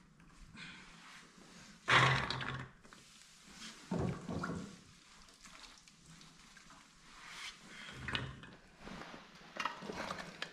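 Hands snapping green vegetable stalks and dropping the pieces onto a steel plate: scattered small clicks, with two louder noises about two and four seconds in.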